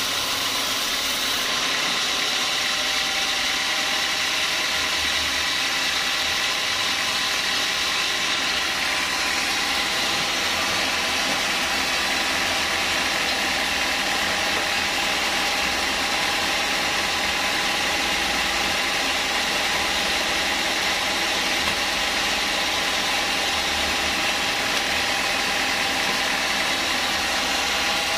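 Band sawmill running steadily, its blade sawing a log of small-leaf acacia: a constant machine hum with a few held tones over the hiss of the cut.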